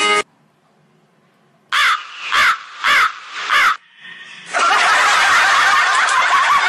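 Crow cawing four times in quick succession after the music cuts off into near silence, in the manner of the comic 'awkward crow' sound effect. From about four and a half seconds, a dense, loud noisy sound takes over.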